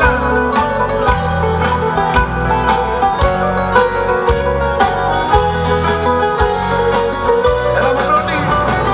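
Live band playing an instrumental passage of Greek popular music through the PA: a plucked string lead with guitar, violin, bass and drums.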